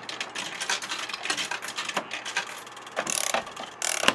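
An irregular run of quick clicks and rattles, with two short hissing bursts near the end.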